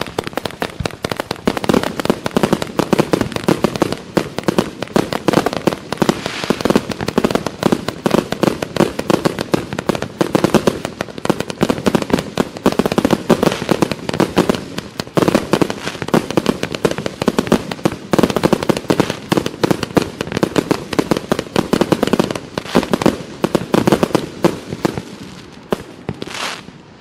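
Klasek Dumbum Crazy Fan compound firework firing a loud, rapid, unbroken volley of bangs as its shots fan out into the sky, stopping shortly before the end.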